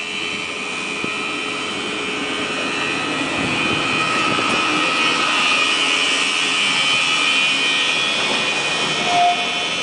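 Vintage wooden electric train pulling out and passing close by with a steady high whine over the rumble of its running gear, growing louder as it goes by. A brief higher tone sounds near the end.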